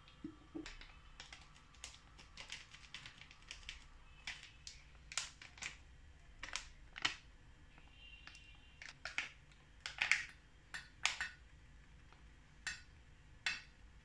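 A plastic spice packet of ground Sichuan pepper crinkling and crackling in the hands as it is handled and opened: an irregular run of sharp, quiet clicks and crinkles.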